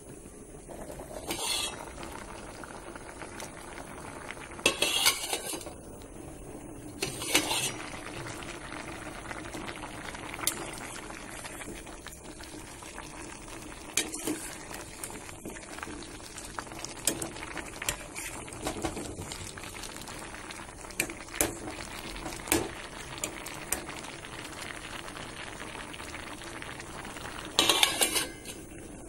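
Potatoes, onions and chillies boiling in a steel pot, a steady hiss, with metal clanks and clatters against the pot. The loudest clanks come about 5 and 7 seconds in and again near the end.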